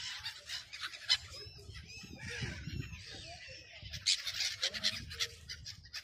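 A flock of sea birds calling, many short overlapping calls at once, thickest about two-thirds of the way through, over a low rumble.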